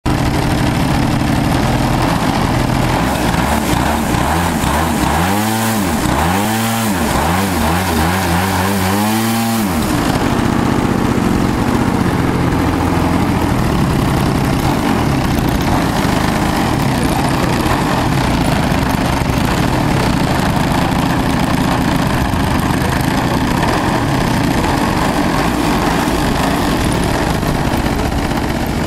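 DLE 55 single-cylinder two-stroke petrol engine of a 2.2 m Sebart aerobatic model plane running on the ground, idling steadily. Midway through it is revved up and down several times in quick swoops before settling back to idle.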